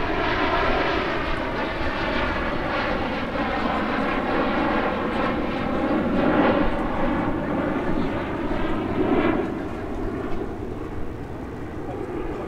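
Two CT-114 Tutor jets, each with a single J85 turbojet, flying past: a steady jet rush that swells to its loudest about six seconds in and again around nine seconds, then eases off near the end.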